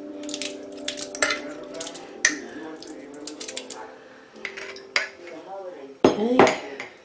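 A metal spoon scraping and clinking against the inside of a glass jar as sauerkraut is scooped out into a stainless steel stock pot, with a few sharp clicks. A louder brief sound comes near the end.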